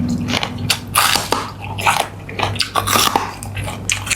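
A person chewing and biting food close to the microphone, with irregular wet crunches and smacks.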